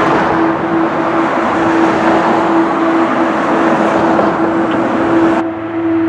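Loud, dense noise drone with a steady humming tone running through it. About five and a half seconds in, the high hiss cuts out suddenly and the sound turns duller.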